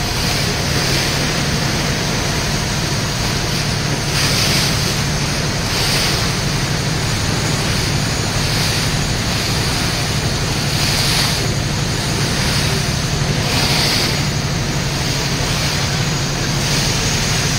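Wind on the microphone and water rushing past a moving ferry, over the steady low hum of the ferry's engine; the hiss swells every second or two.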